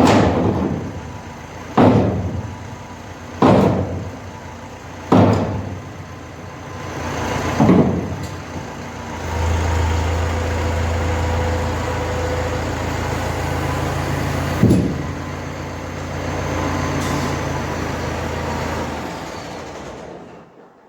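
Heavy metal-on-metal clangs, about one every second and a half to two seconds, five times in the first eight seconds, as a heavy weight slung from the front of the tractor is used as a sledgehammer to knock a welded drawbar off. A tractor engine runs under it, grows louder from about ten seconds in with one more clang partway through, then shuts off near the end.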